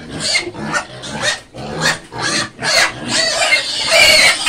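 Young pigs squealing and grunting, a rapid string of short loud calls about two a second that run together into continuous high squealing from about three seconds in.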